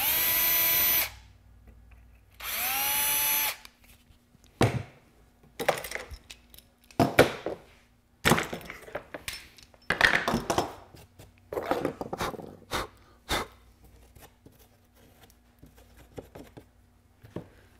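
Cordless drill with a small bit running twice, about a second each, drilling two screw pilot holes for a concealed hinge; the second run winds down in pitch as it stops. Then scattered light clicks and knocks of handling.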